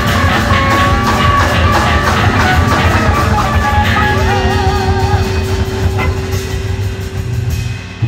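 A live noise-rock band, electric guitars and drums, playing loud and dense. About halfway in a wavering guitar line and a held note come in. Near the end the drums and cymbals break off and the sound falls away.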